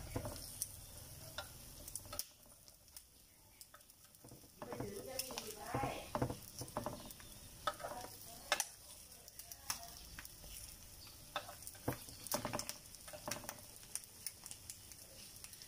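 Quail eggs sizzling in the round cups of an electric takoyaki-style pan, with a metal spoon clicking and scraping against the pan as the eggs are turned.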